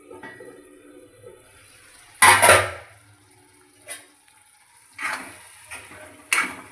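Kitchen utensils and dishes clattering: the loudest knock, about two seconds in, rattles for about half a second, then a sharp click and a few more knocks follow.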